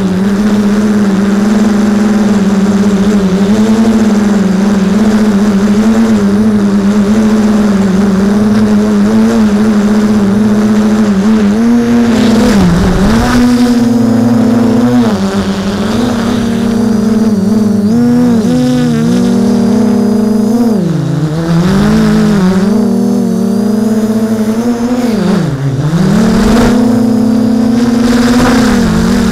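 The electric motors and propellers of a small drone, picked up by its own onboard camera, running with a steady pitched whine. The pitch dips and climbs back several times as the throttle is eased and reopened in flight.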